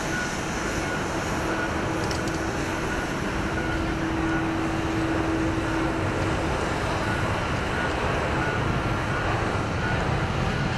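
Boeing 787-9's Rolls-Royce Trent 1000 turbofans at takeoff thrust on the runway roll: a steady jet roar that grows slightly louder.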